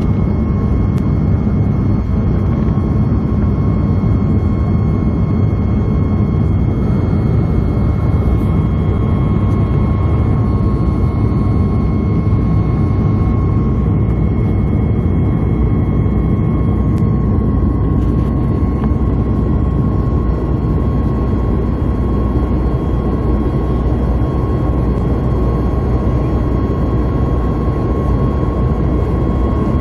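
Boeing 737-800's CFM56 jet engines and airflow heard from inside the passenger cabin in flight: a loud, steady rumble with a steady high whine over it.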